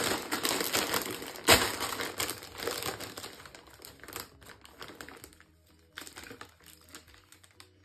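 Plastic crisp packet (a bag of Doritos Dippers) crinkling and rustling as it is opened and a hand reaches into it, with one sharp, loud crackle about a second and a half in. The rustling dies away after about five seconds.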